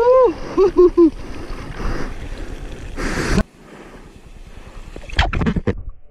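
Rushing water and wind from surfing on a mouth-held GoPro, with a short whoop at the start and a few quick vocal notes about a second in. The rushing cuts off abruptly about three and a half seconds in, leaving quieter water, and a few sharp knocks come near the end.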